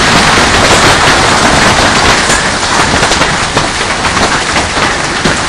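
Golf-ball-sized hailstones falling hard, a loud dense barrage of overlapping impacts over a steady roar, easing slightly in the second half.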